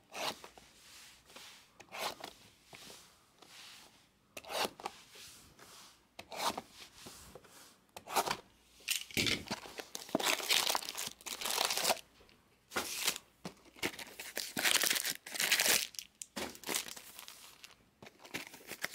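Plastic shrink wrap on sealed trading-card hobby boxes crinkling and tearing under a hand as the boxes are handled and unwrapped. It comes in irregular bursts and is loudest and busiest in the middle of the stretch.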